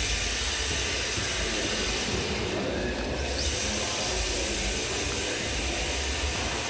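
Radio-controlled drift car (MST MS-01D chassis, Nissan Skyline R34 body) running on the track, heard as a steady hiss. The high part of the hiss dips briefly about three seconds in.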